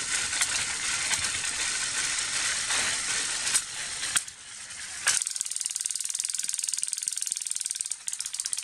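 Plarail battery-powered toy trains running on plastic track, their small motors and gearboxes making a fast, dry gear rattle. The rattle starts about five seconds in, after a couple of sharp clicks as the trains are switched on; before that there is a steady hiss.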